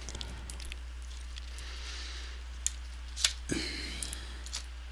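A laptop LCD panel handled with gloved hands as it is tipped out of the lid and laid face down: a few light clicks and a brief rustle about three and a half seconds in.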